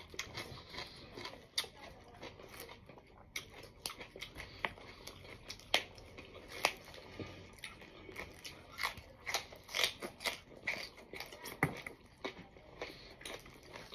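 A person chewing raw radish and green onion, with many irregular crisp crunches.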